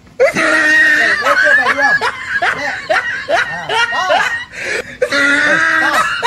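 A person laughing: a long high-pitched note, then a quick run of short rising-and-falling laughs, then another long held note about five seconds in.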